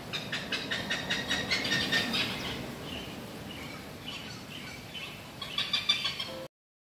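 Hornbill cackling: a fast series of harsh, repeated notes for the first two seconds or so, scattered calls after that, and a second quick run near the end.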